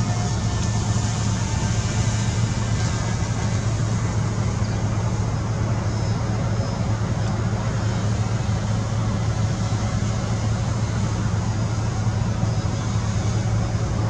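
Steady low mechanical hum with a constant wash of noise, unchanging throughout.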